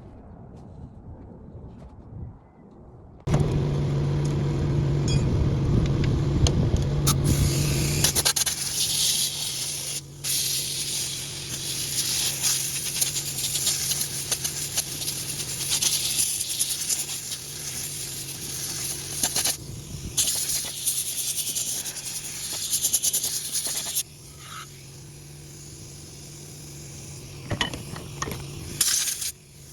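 Machinery running with a steady hum, mixed with scraping and metal clatter; it starts suddenly a few seconds in, is loudest for the first few seconds after that, and drops off sharply about three quarters of the way through.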